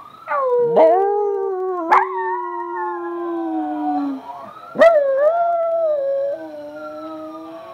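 Chihuahua howling in long, wavering howls, starting fresh with a sharp yelp-like onset about two and five seconds in, with a second howling voice overlapping it on a lower, slowly falling pitch.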